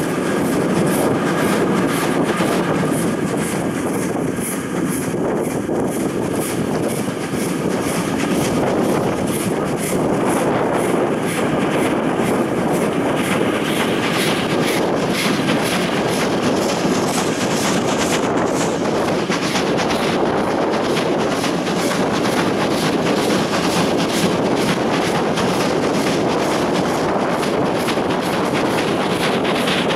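Steam-hauled train running at speed behind the class 52 locomotive 52 1360-8, heard from a carriage window: a steady rush of wheel and wind noise with a fast, even rhythmic beat, growing brighter about halfway through.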